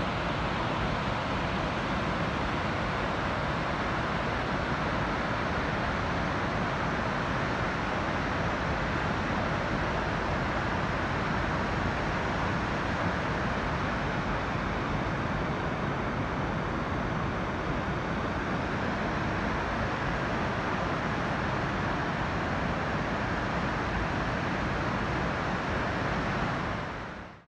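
Steady rushing of a waterfall and river rapids, an even roar of white water with no rhythm, cutting off abruptly at the very end.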